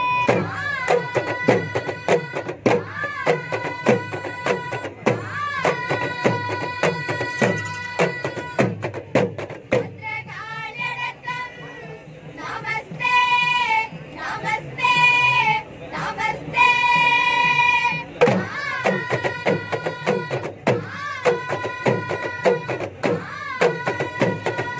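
A group of girls singing a folk song in unison to a steady beat of small double-headed drums struck with sticks. From about ten seconds in the drumming thins out while the voices hold long notes, and the full drum beat comes back near eighteen seconds.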